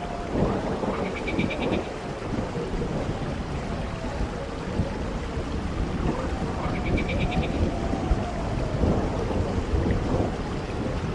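Storm ambience for a horror soundscape: steady rain with a low thunder rumble. Faint wavering tones drift through it, and two short bursts of rapid high ticks come about a second in and again about seven seconds in.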